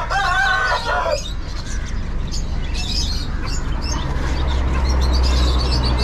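Caged birds chirping and squawking, with a louder drawn-out call in the first second, over a steady low rumble.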